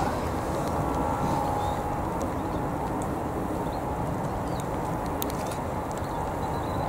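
Boeing 747-400's four jet engines at taxi power, heard from a distance as a steady rumble, with a faint whine in the first couple of seconds.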